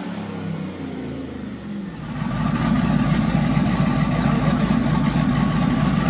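Turbocharged truck engine on a chassis dyno, its revs falling away as a pull ends. About two seconds in it settles into a louder, choppy, rumbling idle.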